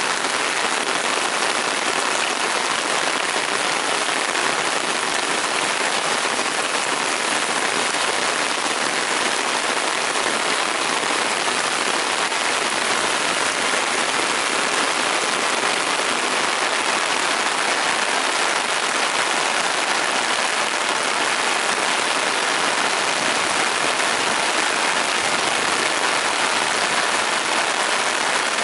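Heavy rain pouring down, a dense, steady hiss that does not let up.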